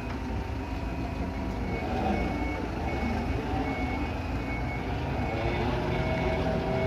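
Morooka MST-1000VDL crawler carrier's engine running with a steady rumble. Its warning alarm beeps repeatedly from about two seconds in, typical of a travel or reversing alarm.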